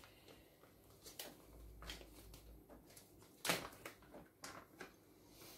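Faint rustling of a plastic bag of powder and light taps of a teaspoon as powder is measured out, a string of small clicks with a sharper one about three and a half seconds in.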